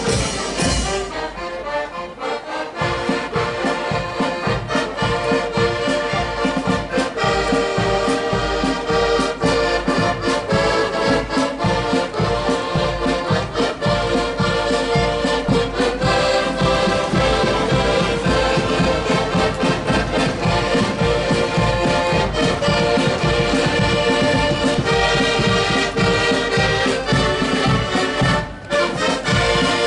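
Marching accordion band playing a march: many piano accordions sounding the tune together over a steady beat. The music drops out briefly near the end.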